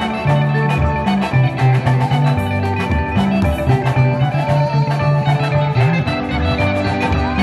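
Live gospel band playing an upbeat instrumental passage: interlocking electric guitar lines over electric bass and a drum kit, with a steady dance beat.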